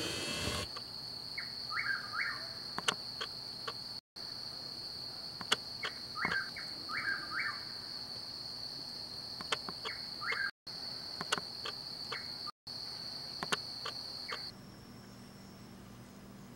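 A steady, high, unbroken insect trill, with a bird giving short runs of two or three quick chirps three times, and scattered clicks throughout. Near the end the trill stops and a low steady hum remains.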